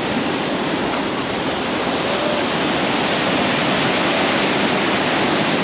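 Ocean surf washing up over wet sand close by: a steady, loud rush of foamy water.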